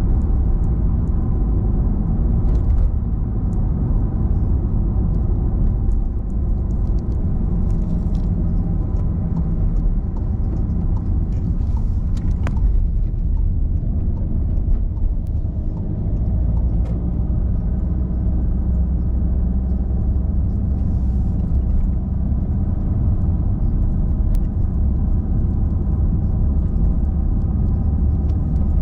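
A car driving at a steady pace: continuous low engine and road rumble, with a few faint clicks.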